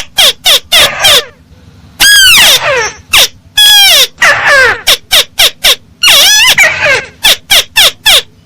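Tikusan sawah crake calling: harsh, loud, arching notes given in quick runs, with a few longer drawn-out notes between the runs. This is a loud recorded call of the kind used as a lure.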